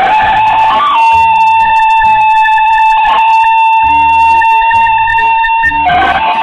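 Music with a steady low beat and a single long held high note that lasts about six seconds and breaks off near the end.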